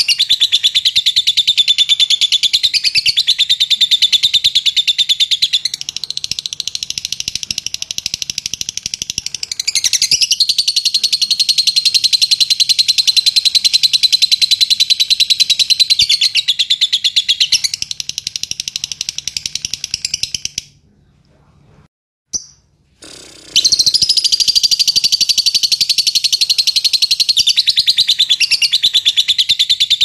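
Fischer's lovebird's rapid, ticking 'ngetik' chatter, a fast continuous run of high notes. It breaks off about two-thirds of the way through, with one short chirp in the gap, then starts up again.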